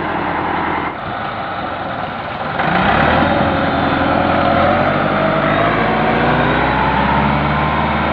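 Massey Ferguson 375 tractor's diesel engine working hard, revving up about two and a half seconds in and then held at high revs. The tractor is straining to move an overloaded sugarcane trolley in reverse.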